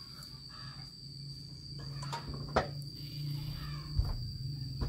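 Two sharp clicks, about a second and a half apart, from a Sumitomo Z1C fibre fusion splicer being worked by hand, the second a finger pressing its button. Under them, a steady high-pitched insect drone, and a low hum that comes in about halfway.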